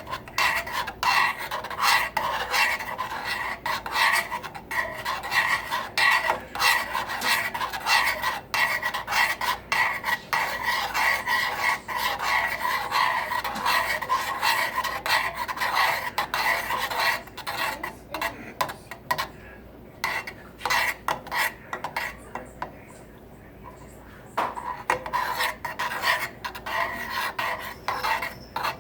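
A utensil scraping and rubbing around a saucepan while stirring a cornstarch and sweetened condensed milk mixture, in quick repeated strokes. The stirring stops for several seconds a little past the middle, then starts again.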